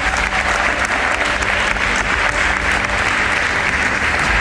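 Group of people applauding, many hands clapping steadily.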